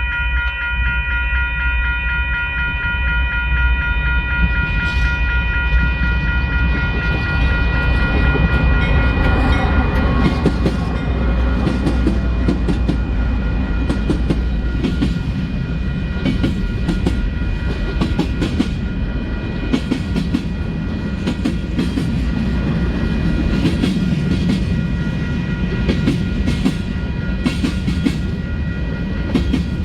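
Long Union Pacific freight train rolling past. A deep rumble and a steady high ringing of several tones are strongest at first and fade within about ten seconds. The wheels clatter and knock over the rail joints throughout.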